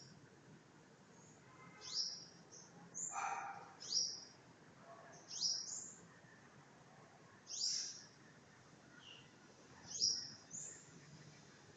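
A small songbird chirping: short, high notes that fall in pitch, often in quick pairs ("tweet tweet"), repeated every second or two.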